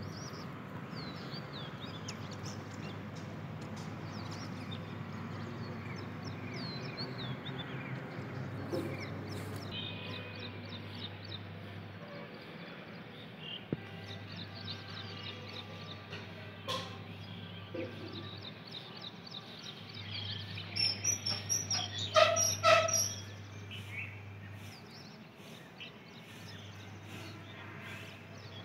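Birds chirping and twittering over a steady low hum that comes and goes, with a few louder, clear-pitched calls about three-quarters of the way through.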